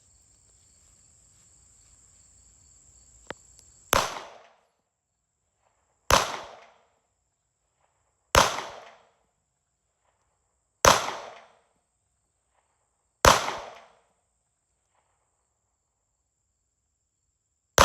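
A gun fired six times in a steady series, about one shot every two to two and a half seconds, the last right at the end. Each shot is a sharp crack with a short fading echo.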